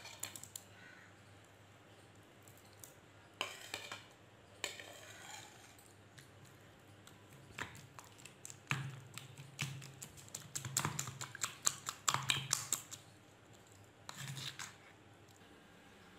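Metal spoon scraping and clinking against a plate and bowl as cooked chicken is pushed into beaten eggs. About halfway through comes a dense run of quick clicks and knocks as the mixture is stirred.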